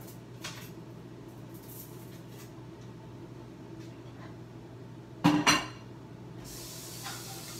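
Kitchen work sounds: faint clinks of dishes and utensils, then a loud clatter of dishes twice in quick succession about five seconds in. About a second later a water tap starts running, over a steady low hum.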